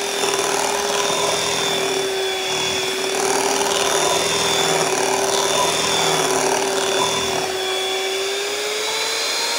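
Electric hand mixer running steadily with a constant motor whine, its beaters churning through thick, lumpy cream-cheese batter in a glass bowl. The pitch rises slightly near the end.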